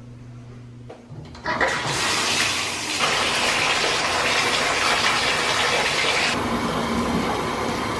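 A low steady hum, then about a second and a half in, a bathtub faucet runs at full flow, water splashing into the tub as it fills.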